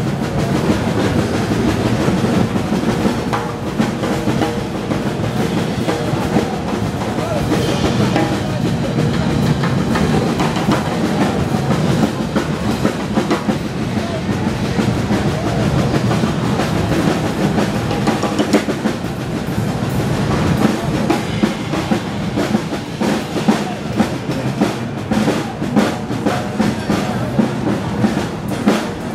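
Two snare drums played together with sticks in an improvised duet: fast strokes and rolls trading back and forth, with sharper, more separated accented hits near the end.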